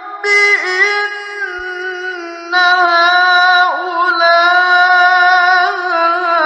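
A man's voice in Quranic recitation, chanted in the melodic mujawwad style: long held, ornamented notes with sliding pitch. A new, louder phrase begins about two and a half seconds in.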